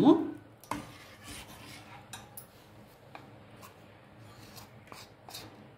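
A steel spoon scraping custard mixture out of a plastic bowl into a steel pot, with faint scraping and a few light clicks scattered through.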